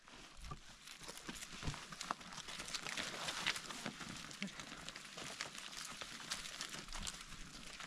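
Footsteps of several people walking over stony, grassy ground, with irregular scuffs and clicks, and plastic bags and sacks rustling as they are carried.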